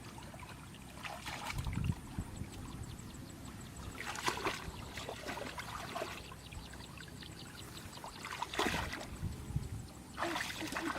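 Water splashing and trickling, with four short splashes standing out over a steady low wash.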